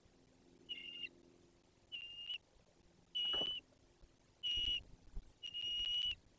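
Bald eagle nestling peeping: five high, even-pitched peeps about a second apart, each under a second long, the last one the longest.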